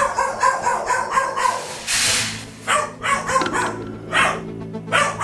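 A dog barking repeatedly in quick runs of short, sharp barks, with one longer, noisier burst about two seconds in.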